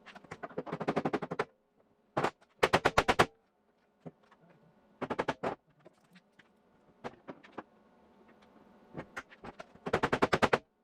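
MIG welder laying short stitch welds on sheet-metal body panels: about seven bursts of rapid crackling pulses, each lasting under a second to about a second and a half, with a faint steady hum between them.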